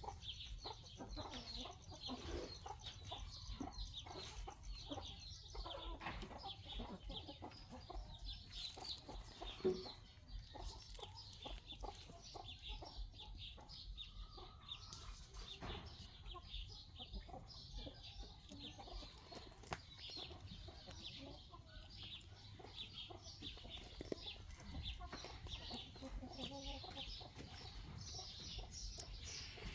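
Birds calling: many short, high calls overlapping in a continuous chatter, with one sharper knock about ten seconds in.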